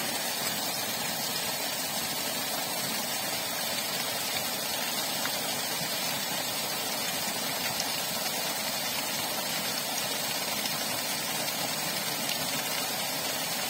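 Water gushing steadily from a submersible borewell pump's discharge pipe, the jet spraying onto the ground.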